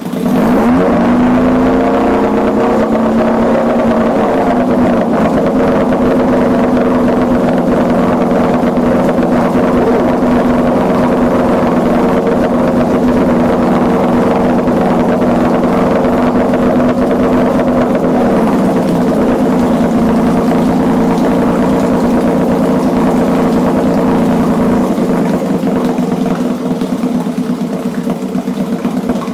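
1965 Evinrude Fisherman 6 hp two-stroke outboard catching and starting without starting fluid, revving unevenly for a few seconds before settling into a steady idle. About 18 seconds in its pitch drops a little as the idle is turned down, and it runs slightly quieter near the end.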